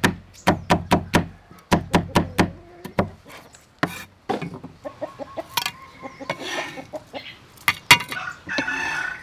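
A kitchen knife chopping red chilies on a wooden chopping board: quick knocks of the blade on the board, about five a second for the first two and a half seconds, then scattered cuts. Later come a few short animal calls, with a longer, louder call near the end.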